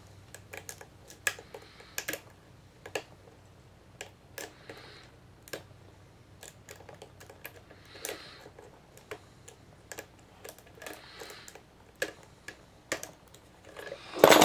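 Lock picking in a Master Lock No. 570 padlock: irregular small metallic clicks and light scraping of a pick and tension wrench working the pins in the keyway, with a louder clatter near the end.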